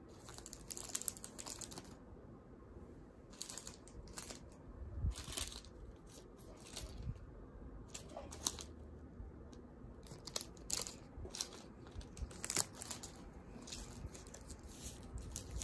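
Pokémon card packaging, plastic and foil, crinkling and tearing in short rustles on and off.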